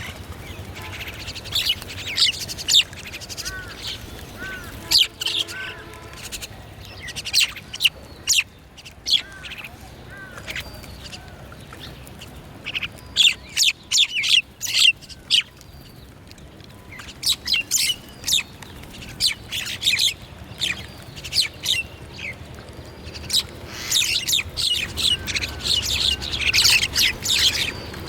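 Small songbirds chirping and calling, short high chirps coming in quick runs and busiest near the end, with a lower, harsher call about five seconds in.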